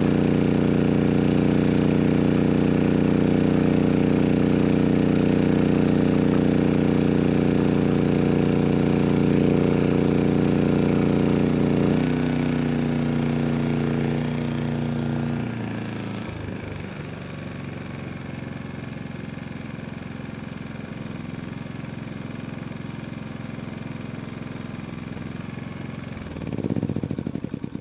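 MAXPEEDINGRODS MXR5500 inverter generator's engine running steadily under heavy load, then dropping in speed in two steps about twelve and fifteen seconds in as the load of space heaters comes off. Near the end it is shut down, with a brief swell before it winds down to a stop.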